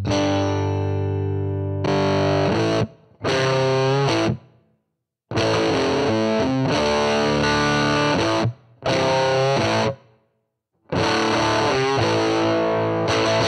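Electric guitar through a modeled tweed Fender Princeton 5F2 amp and its matching DynaCab, with a Bender Fuzz drive in front giving a fuzzy, distorted tone. It plays several short phrases and chords, with brief silent pauses between them.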